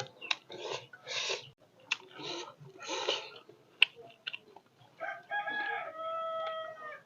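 A rooster crowing once, a long held call starting about five seconds in and dropping at the end, after a few short close-up chewing noises.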